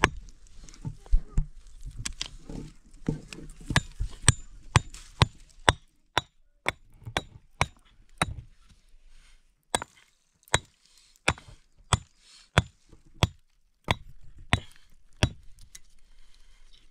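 A hand tool striking a hard material again and again: sharp single blows, irregular at first, then settling into a steady rhythm of one to two a second, stopping shortly before the end.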